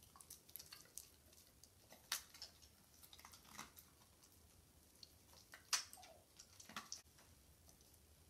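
Faint, scattered clicks and smacks of a dog chewing treats fed from a hand, the two loudest about two seconds in and just before six seconds in.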